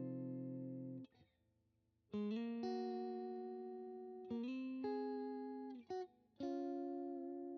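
Custom single-pickup electric guitar with an alder body and maple neck, played with a clean tone. A ringing chord is muted about a second in, and after a short pause a phrase of sustained single notes and double-stops follows, some with slight bends.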